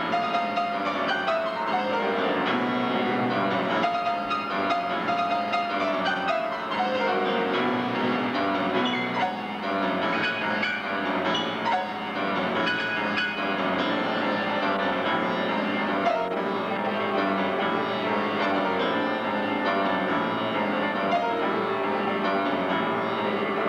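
Solo grand piano playing a fast, dense passage of many rapid notes without a break.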